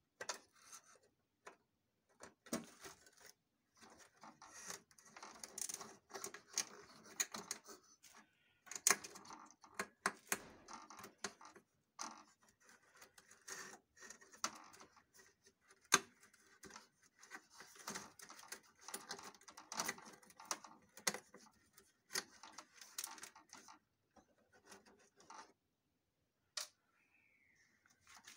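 Irregular clicks, taps and rustling from hands handling the cable harnesses and plastic connectors inside an opened Xerox WorkCentre 5855 copier, with short pauses and a near-silent stretch near the end.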